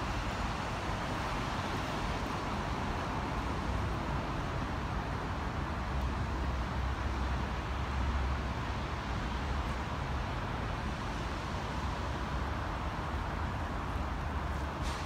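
Steady hum of city traffic, an even wash of noise with a low rumble and no distinct events.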